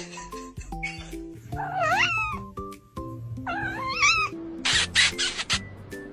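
Domestic cat meowing twice, long calls that bend in pitch, over background music, with a short burst of rushing noise near the end.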